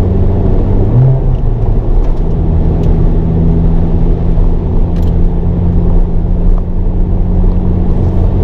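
Hyundai Avante N's turbocharged four-cylinder engine running at a fairly steady pitch while lapping a circuit, heard from inside the cabin with heavy road and tyre noise.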